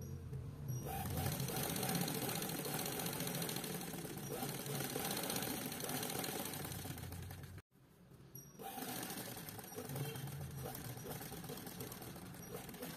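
Sewing machine stitching steadily in two runs, broken off suddenly about halfway, as a collar is sewn in the ditch.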